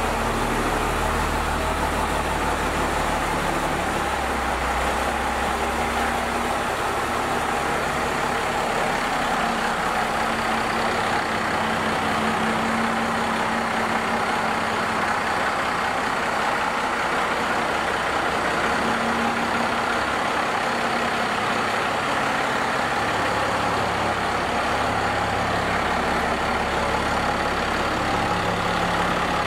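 First-generation Dodge Ram 350's Cummins 12-valve inline-six diesel engine running steadily at idle and low speed as the truck moves.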